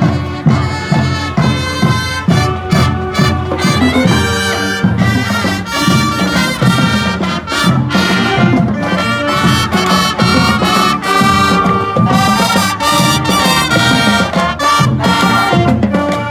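Marching band playing a tune as it passes: trumpets, saxophones, clarinets and low brass over a steady drum beat.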